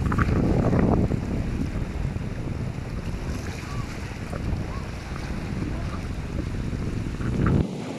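Wind buffeting the microphone over the wash of sea surf, a gusty low rumble that drops away sharply near the end.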